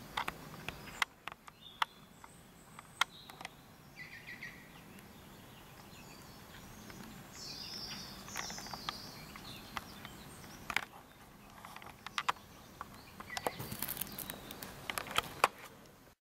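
Outdoor ambience with small birds chirping briefly a few times, over scattered sharp clicks and knocks that come thickest near the end.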